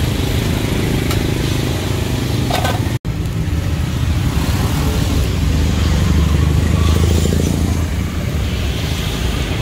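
Street traffic with motor vehicle engines running close by: a steady low engine rumble that swells in the middle, broken by a split-second gap about three seconds in.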